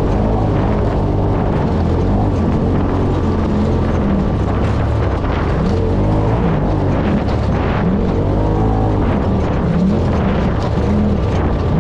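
UTV engine running hard under load, its revs repeatedly rising and falling as it drives over rough sand.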